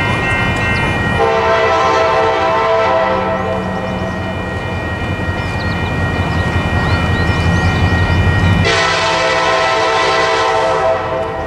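Approaching diesel locomotive sounding its multi-chime air horn in two long blasts. The first runs about three seconds and fades; the second starts sharply about nine seconds in. A low engine rumble sounds underneath throughout.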